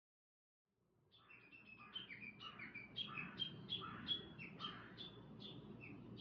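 A small bird chirping, a quick, steady run of short high notes that each slide down slightly, starting about a second in after a brief silence. The chirping is faint, over low outdoor background noise.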